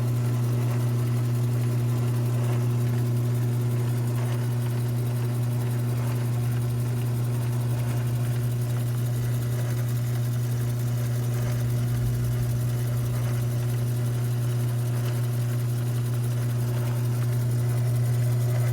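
Modified mini lathe running steadily on its fractional-horsepower electric motor, an even, unchanging hum. The motor was fitted in place of the stock electronic speed control.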